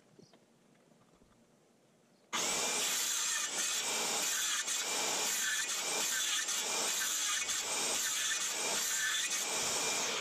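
A power tool cutting into wood: it runs at a steady, loud level with a slow pulsing about every half second. It starts abruptly about two seconds in and stops near the end.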